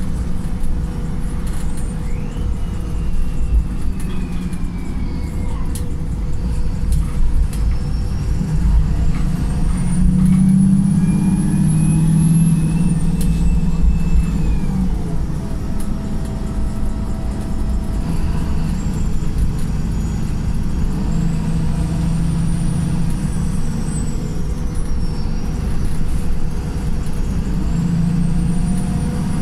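Wright Pulsar single-deck bus in limp mode, its diesel engine and drivetrain running under way. The engine drone surges and eases as the bus accelerates and changes gear, loudest about a third of the way in. A high whine rises and falls three times.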